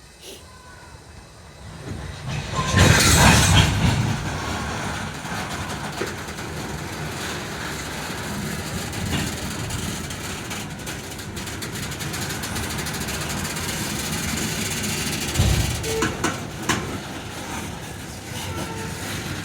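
Loaded coal train rolling past, its wheels clacking steadily over the rail joints, with a loud rush about three seconds in and a few sharp clicks near the end.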